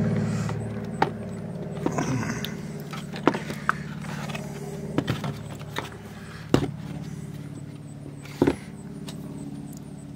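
Scattered sharp clicks and knocks of small parts and wire connectors being handled while fitting a generator's control panel, over a steady low hum.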